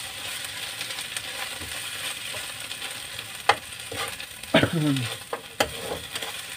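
Sardines and garlic sizzling in a frying pan over a gas flame, stirred with a metal spatula that clicks sharply against the pan a few times. A short falling tone comes about halfway through.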